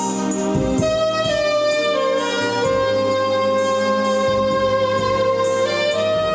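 Jazz saxophone playing a slow ballad over a backing accompaniment with steady bass notes, holding one long note through the middle.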